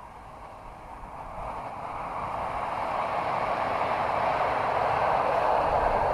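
Great Planes Kunai radio-controlled warmliner flying in, a rushing sound that grows steadily louder over about four seconds and then holds.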